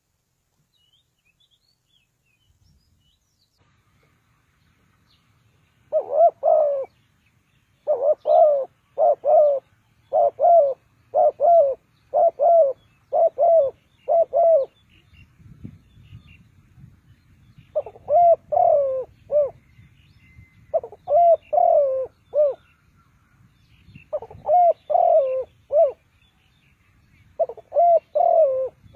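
Spotted dove cooing, starting about six seconds in: repeated phrases of several coos each, separated by short pauses. Faint chirps of other small birds sound behind it.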